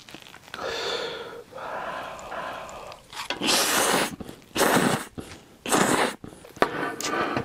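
A person slurping Buldak carbonara instant fire noodles: a softer start, then a run of loud, airy slurps, about one a second, in the second half.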